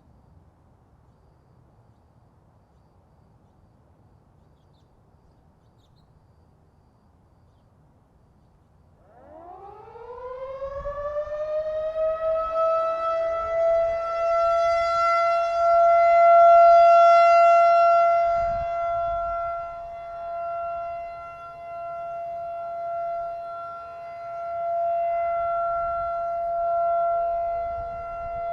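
Federal Signal 2001-DC rotating electromechanical outdoor warning siren winding up about nine seconds in, its pitch rising and then holding one steady tone: the steady alert signal. Once at full pitch its loudness swells and fades every few seconds as the rotating head sweeps past.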